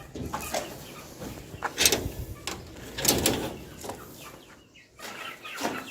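Chickens clucking, mixed with irregular short knocks and rustles, the loudest about two and three seconds in.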